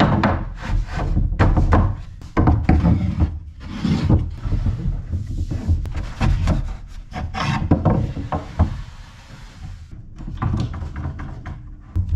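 Long mahogany boards sliding and scraping on a plywood workbench, with irregular knocks as small wooden blocks are set under them. The noise quietens after about eight seconds, and there is a sharp knock near the end.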